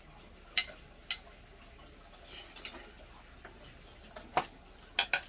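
A metal spoon clinking against a stainless-steel bowl as rice is mixed and scooped. There are two sharp taps in the first second or so, then a quick cluster of four near the end.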